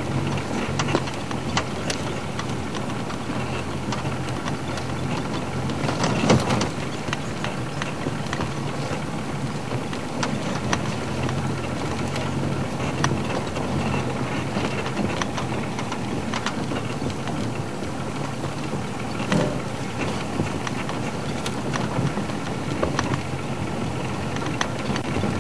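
Game-drive vehicle's engine running steadily as it drives slowly over rough ground, with scattered knocks and clicks from the bumpy ride, a louder cluster of them about six seconds in.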